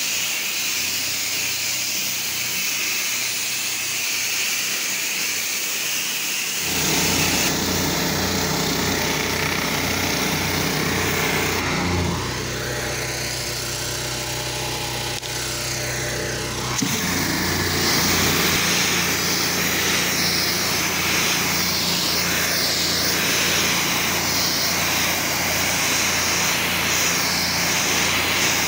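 Gas-engine pressure washer running with the hiss of its water jet spraying concrete. At first mostly spray hiss, then the engine's low steady hum comes in about a quarter of the way in and carries on.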